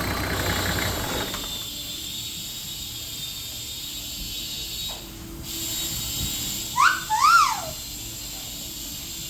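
Toyota 1HZ diesel engine running for about the first second, then cutting off, leaving a faint steady hiss. About seven seconds in, two short whistles, each rising and then falling in pitch, are the loudest sound.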